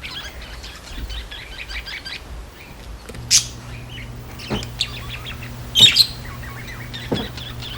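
Small birds chirping: many quick high tweets, with a few louder, sharper chirps standing out.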